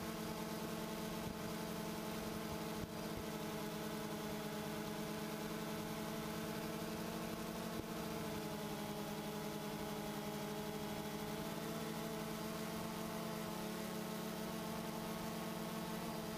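A DJI Phantom 2 quadcopter's motors and propellers buzz steadily in flight, heard through the camera on board. The pitch sags a little about halfway through and climbs back near the end.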